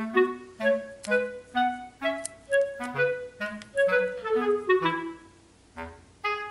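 Background music: a bouncy tune of short, separate notes, with a brief break a little after five seconds.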